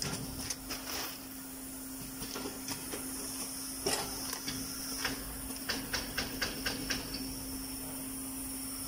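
Ground-coffee pouch packing machine running: a steady hum with scattered sharp mechanical clicks, and a quick run of about six clicks, some four a second, a little past the middle.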